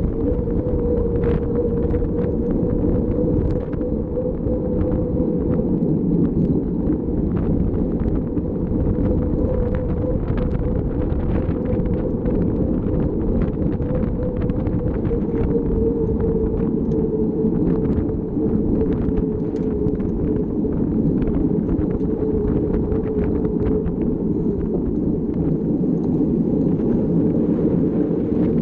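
Mountain bike being ridden, heard from its own camera: wind buffeting the microphone with a steady low drone, and frequent light clicks and rattles from the bike over rough ground.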